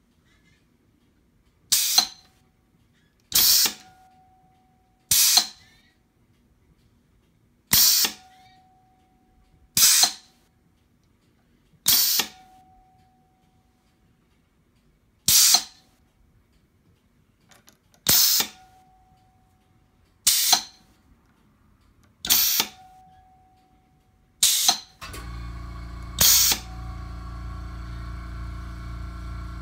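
Homemade pneumatic press's air cylinder being cycled through its air valve: a sharp blast of exhausting air about every two seconds, several of them followed by a short metallic ring. About 25 seconds in, a steady machine hum starts and runs on under the blasts.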